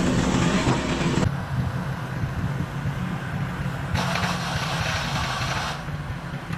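An engine running steadily at a constant speed, with a rushing noise over it for about the first second and again for a couple of seconds past the middle.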